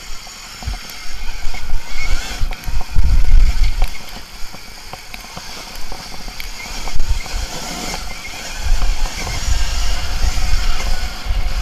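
KTM Freeride E electric dirt bike riding over a loose gravel trail: a steady hiss of tyres on stones with scattered knocks and rattles, and irregular low rumbling surges from wind on the helmet-mounted microphone. No engine note.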